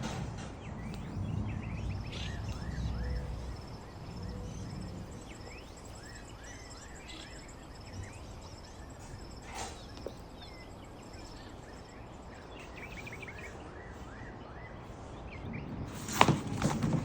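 Small birds chirping in short, quick calls, over a faint steady high trill and low background noise. A few sharp clicks, the loudest near the end.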